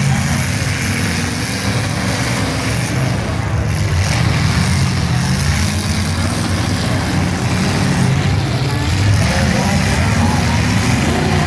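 Engines of several demolition derby cars running together as they drive around the arena, a loud, steady rumble.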